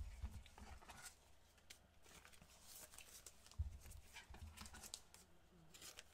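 Faint rustling and light clicks of gloved hands handling trading cards and foil packs, with a soft thump about three and a half seconds in.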